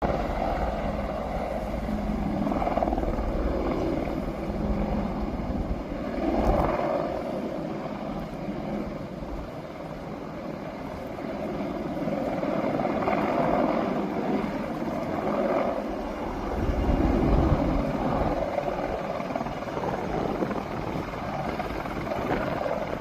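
Helicopter flying low nearby: a continuous rotor and engine noise with a low rumble, swelling and easing several times.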